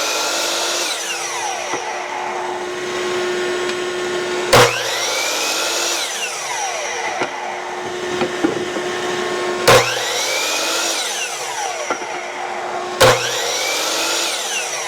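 Electric miter saw being run again and again to clip the corners of wood pieces at 45 degrees. The motor starts with a sharp jolt three times, each time spinning up with a rising whine, running steadily, then winding down.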